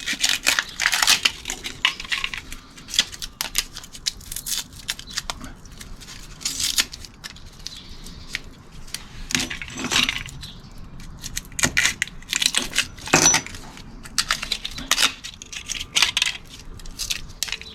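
Irregular metallic clinks and scrapes as the copper windings are worked out of a split microwave oven transformer's steel core.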